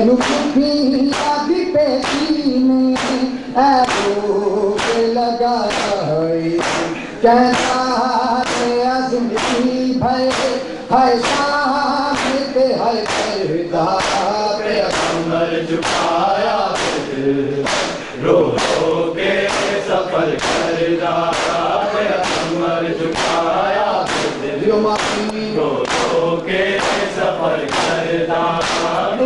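Men's voices chanting a noha together, with a steady beat of sharp slaps, about three every two seconds, from a crowd beating their chests in unison (matam).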